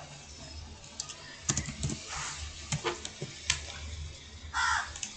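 Typing on a computer keyboard: a few scattered key clicks over a low steady hum, with a short, louder call near the end.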